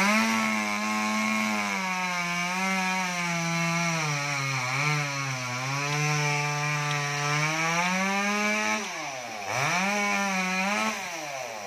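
Two-stroke chainsaw cutting a felled coconut palm trunk into sections. The engine runs at high revs with its pitch sagging under load in the middle. About nine seconds in the throttle is let off and blipped again, then it drops back toward idle near the end.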